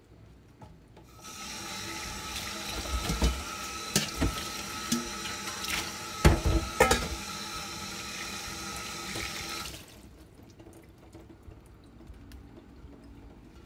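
Kitchen tap running into a sink while vegetables are rinsed in a stainless-steel colander, with several sharp knocks and clatters of the metal colander. The water starts about a second in and is shut off about ten seconds in.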